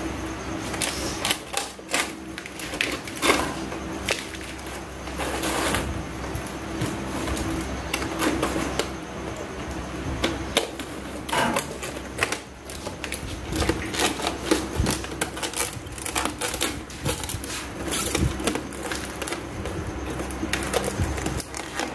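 Irregular clicks, taps and light rattles of wires and breakers being handled inside a metal circuit breaker panel, over a faint steady hum.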